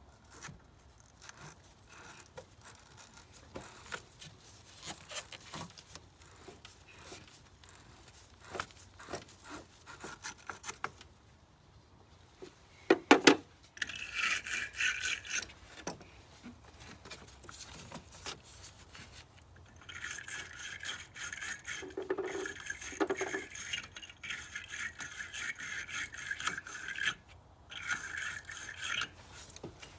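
Wire battery-terminal brush scrubbing battery terminals and cable connectors: rapid rasping strokes in spells, with a single sharp knock about halfway through.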